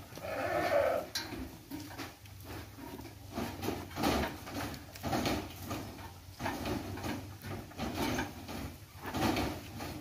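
An Amingad sheep bleats once, about half a second in. Repeated scuffling and knocking follow as the sheep is pulled onto a metal chequer-plate platform scale and its hooves land on the plate.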